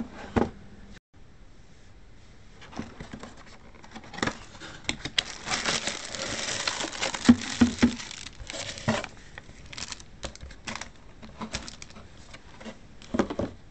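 Unboxing handling noise: a cardboard box being opened and a plastic-wrapped item slid out, with crinkling plastic wrap, cardboard scraping and scattered taps and clicks. The crinkling is densest about halfway through.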